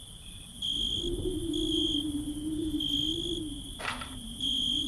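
Insects chirping: a steady high-pitched trill that swells about once a second, over a low wavering hum, with a single sharp click about four seconds in.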